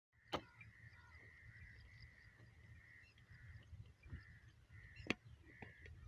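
Faint rural outdoor ambience: a low rumble and a faint, on-and-off high chirping. Two sharp knocks stand out, one near the start and one about five seconds in.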